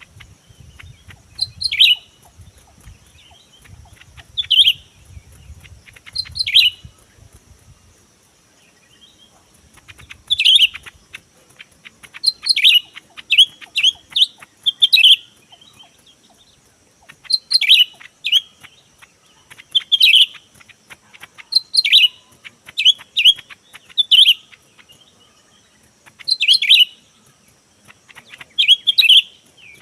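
Cucak ijo (greater green leafbird) giving short, sharp chirping calls, each a quick downward sweep. They come singly every couple of seconds, stop briefly, then come in quicker runs of several calls. A faint steady high-pitched hum runs underneath.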